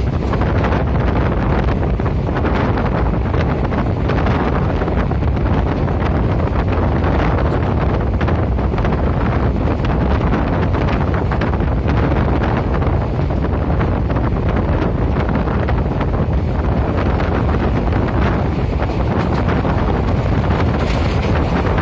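Moving train's steady running rumble under heavy wind buffeting the microphone, strongest in the low end.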